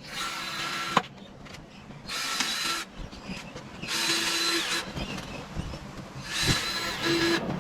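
Power drill with a 1/8-inch bit pre-drilling holes in a length of sail track, running in four short bursts with a steady whine, with a sharp click about a second in.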